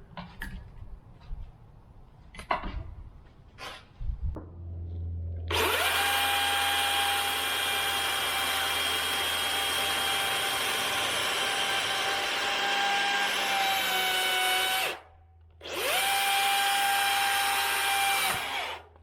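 DeWalt 60V battery chainsaw cutting cedar logs. After a few scattered knocks, its electric motor spins up about five seconds in and runs with a steady high whine over chain noise, sagging slightly in pitch under load before stopping. It then runs again for about three seconds and stops just before the end.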